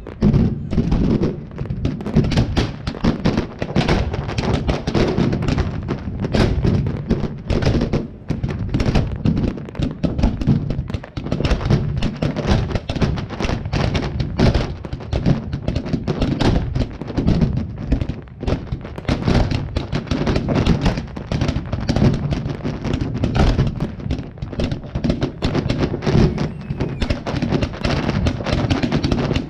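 A fireworks display firing a dense, continuous barrage: many sharp thuds and bangs a second from shells and cakes launching and bursting close by, with deep low thumps and no let-up.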